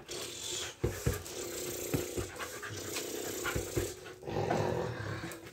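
A mixed-breed dog panting rapidly and steadily, open-mouthed and out of breath from bite-and-tug play. The panting grows louder briefly about four seconds in.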